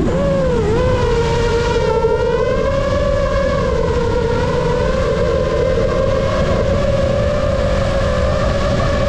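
Brushless motors and propellers of an iFlight Nazgul Evoque F5X 5-inch FPV quad whining. The pitch dips briefly near the start as the quad comes out of a roll, then holds a steady high whine over a rough rush of wind and prop wash.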